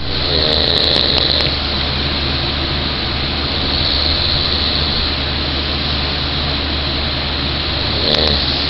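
A person imitating someone's snoring: a steady snoring sound with no clear pauses.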